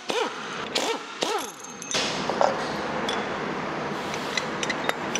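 Metal engine parts being worked by hand: a few short creaks and squeaks in the first second and a half, then scattered light clicks, over steady shop background noise.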